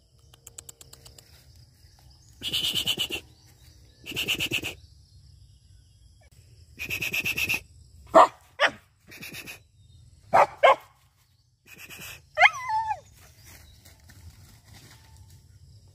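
A dog barking: separate barks spread through, some drawn-out and some sharp and short, with a falling yelp a little past the middle.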